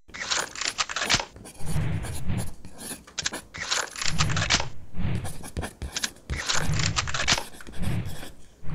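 Electrical wire being pulled hand over hand through conduit, scraping and rustling in repeated uneven pulls, roughly one every second or so.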